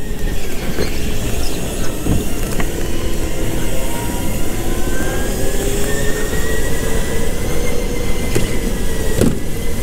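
Go-kart motor running hard down a straightaway, its pitch climbing slowly as the kart gains speed, with two brief dips, over a steady rush of noise.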